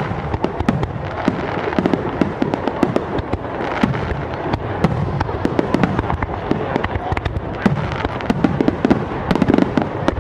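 Aerial fireworks bursting in a dense, continuous barrage of many rapid bangs and crackles.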